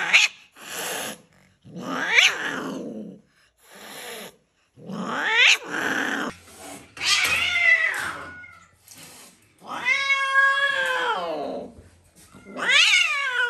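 An angry white long-haired cat yowling about five times, each call long and arching then falling in pitch, with short hisses between the calls. These are the threat calls of a defensive, aggressive cat.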